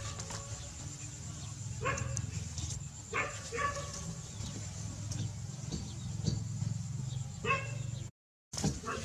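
Short animal calls, five or so scattered over several seconds, over a steady low hum. The sound drops out for a moment near the end.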